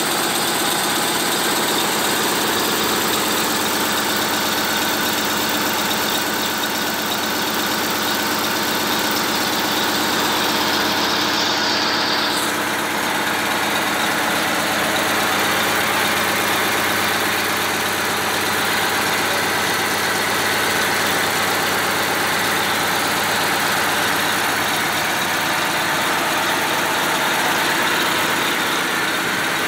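Hino K13CT straight-six turbo diesel idling steadily on its test run after an overhaul with new main and connecting-rod bearings.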